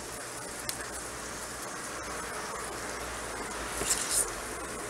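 Meatballs frying in hot oil in a cast iron pan, a low, steady sizzle. A short, sharper hiss comes about four seconds in, as another raw ground-chicken meatball is set into the pan.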